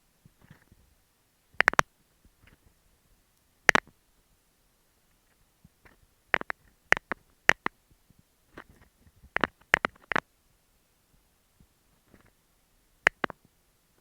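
Fingernails tapping on an earphone microphone right at the mic: about ten sharp, close clicks spaced unevenly, some single and some in quick runs of two or three, with quiet between.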